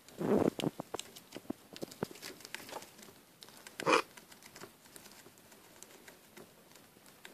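A small pet animal scrabbling in shredded bedding: scattered light clicks and crinkling rustles, with louder rustles near the start and again about four seconds in.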